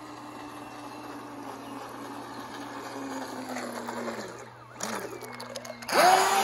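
Small electric RC speedboat's motor whining as it runs across the pond, the pitch easing down about four seconds in. Near the end the motor opens up loudly with a rising whine and a hiss of spray as the boat speeds past close by.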